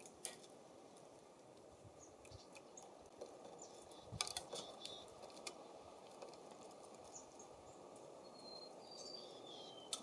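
Faint breezy outdoor hush with a short cluster of sharp taps about four seconds in, then a few brief, high, thin bird calls near the end, one of them sliding down in pitch.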